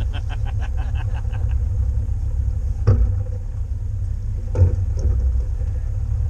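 Boat motor running at trolling speed, a steady low rumble. A rapid run of clicks in the first second and a half, and two knocks about a second and a half apart.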